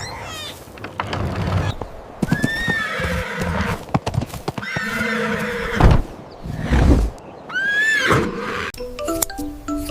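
Horse whinnying twice, each call rising and falling, with hooves clopping in between.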